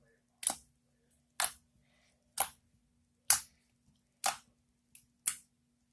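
Homemade slime being worked by hand, giving sharp, short pops about once a second.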